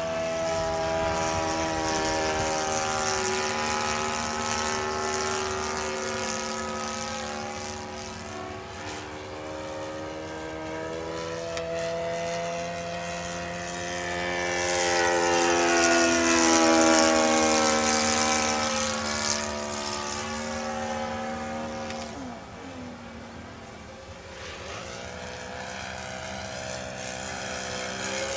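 Saito 100 single-cylinder four-stroke glow engine on a model aerobatic plane running in flight, its pitch rising and falling as the plane manoeuvres and passes. It is loudest a little over halfway through.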